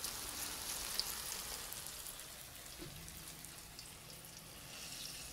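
Faint crackling hiss with scattered small ticks, and a low steady hum that comes in about three seconds in.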